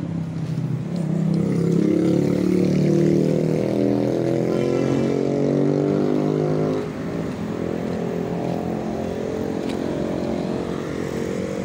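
A motor vehicle's engine running close by, its pitch fairly steady. It is loudest for the first several seconds, then drops off suddenly about seven seconds in to a quieter, continuing run.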